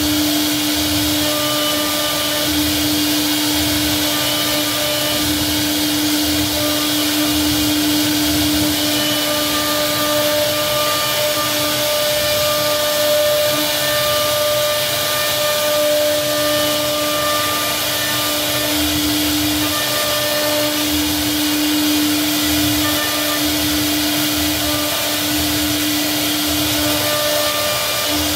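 CNC router spindle running steadily while its bit carves a decorative profile into a solid wood door panel: a constant machine hum with the hiss of wood being cut.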